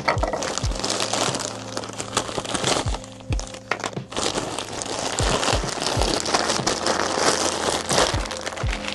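Plastic poly mailer bag crinkling and rustling as it is handled and pulled open, with many small crackles throughout.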